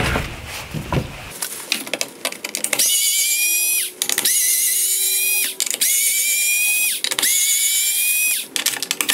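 Electric screwdriver motor whining in four short runs of about a second each, backing out T20 Torx screws from a plastic headlight bracket; the pitch drops as each run stops. Clicks and handling noise come before the first run.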